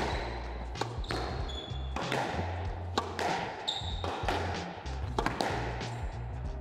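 Squash rally: the ball being struck by rackets and hitting the court walls in a string of sharp hits about once or twice a second, with background music underneath.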